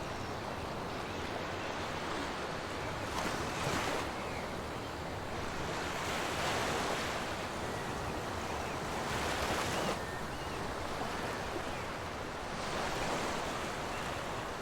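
Sea waves washing onto a shore: a steady rush with a louder surge every three seconds or so.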